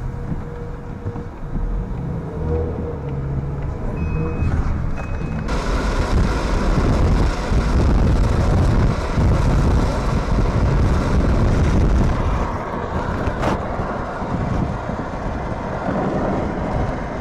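A vehicle's low running rumble with short electronic beeps about once a second. About five seconds in, this changes abruptly to the loud, steady rush of wind and road noise from a vehicle driving fast, with a single click near the end.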